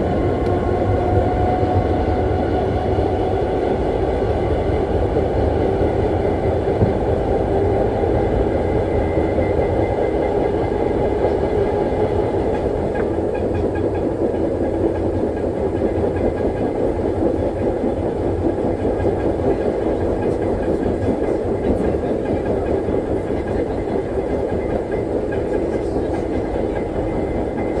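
Historic Berlin U-Bahn series AI railcar 262 (built 1924/25) running along the track, heard from inside the car: a steady rumble and clatter of wheels on rails, with a faint motor whine that is clearer in the first half.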